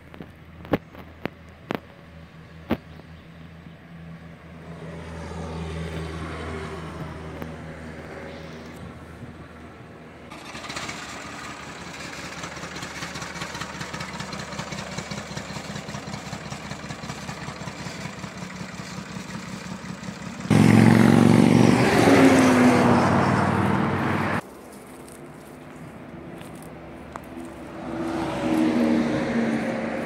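Vehicle engines running in several clips joined by hard cuts: a few sharp clicks, then an engine picking up a few seconds in and running with a fast even beat from about ten seconds. A much louder engine runs for about four seconds from around twenty seconds in and cuts off suddenly, and an engine runs again near the end.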